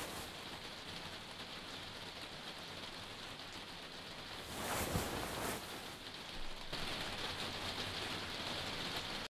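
Steady rain, with a louder swell and a low thump about five seconds in.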